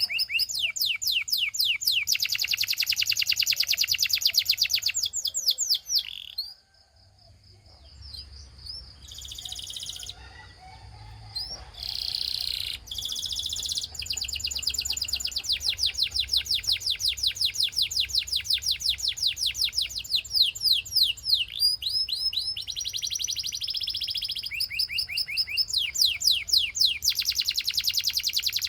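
Canary singing: long rolls of rapidly repeated high notes, with a short break about seven seconds in, after which the song goes on in trills of changing speed.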